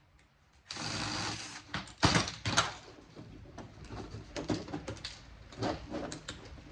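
A cordless drill-driver whirs for about a second, backing a screw out of a cable box's metal case. Sharp metal clanks and lighter rattles follow as the parts are handled.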